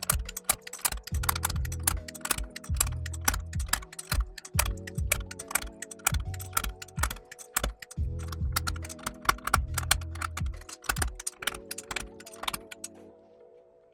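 Rapid plastic clicks of keycaps being pried off a mechanical keyboard with a keycap puller, over background music with a pulsing bass; both fade out near the end.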